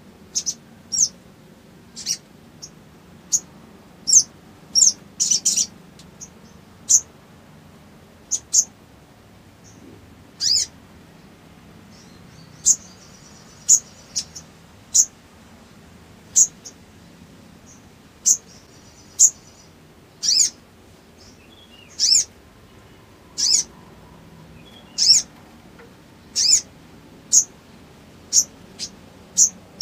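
Male olive-backed sunbird calling: short, sharp, high-pitched chirps, one about every second, with brief irregular gaps.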